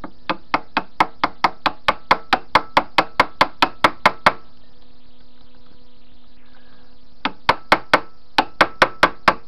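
Rapid runs of sharp metal knocks, about five a second, for about four seconds and again near the end: a reverse jaw being worked into a tight, sticking slot of a 100 mm three-jaw lathe chuck.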